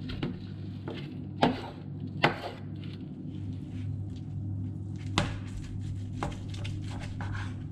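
A handful of sharp knocks on wood, spaced irregularly, over a steady low hum.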